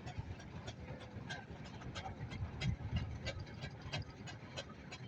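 A vintage steam engine running slowly over a low rumble. A fast, irregular clicking comes about three to four times a second.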